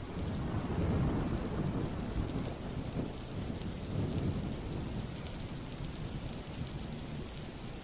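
Steady rain with low rolling thunder that swells and fades several times.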